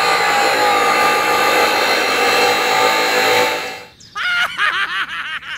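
A miniature electric grinder running, its small motor spinning a disc with a steady whirring, grinding noise that drops away about four seconds in. A quick run of short warbling tones follows near the end.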